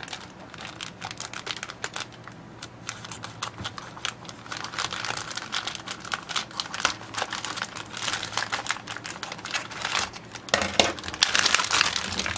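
Scissors snipping through a plastic shipping mailer: a run of small clicks and crinkles of the plastic. About two seconds before the end the plastic is torn and crumpled open by hand, louder.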